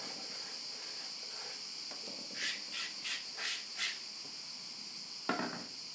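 Piadina dough being scraped out of a wooden bowl: five quick scraping strokes about two to four seconds in, then one dull knock near the end. A steady high-pitched background hiss runs underneath.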